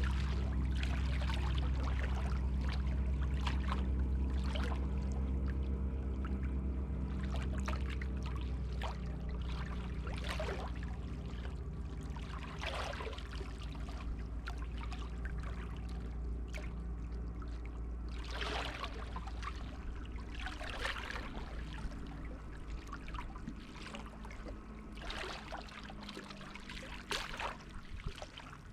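Sea water sloshing and splashing in irregular surges every few seconds, over a low steady drone that slowly fades away.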